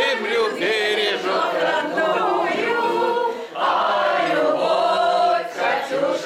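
A group of older amateur choir members singing a song together, the voices holding long wavering notes with a brief break about three and a half seconds in.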